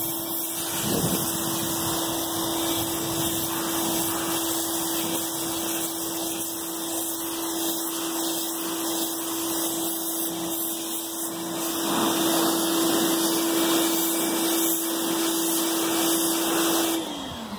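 Electric pressure washer running steadily, its motor humming under the hiss of the water spray. About seventeen seconds in it is switched off and the motor hum falls in pitch as it spins down.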